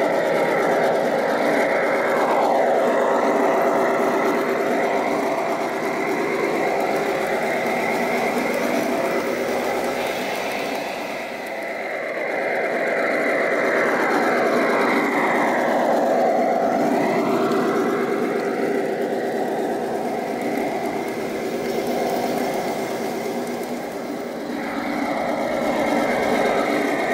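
Sound decoder in a gauge 1 model NMBS Nohab diesel locomotive playing a running diesel engine through the model's small speaker as the train passes; the sound is thin, with no deep bass, and dips in loudness twice, around the middle and near the end.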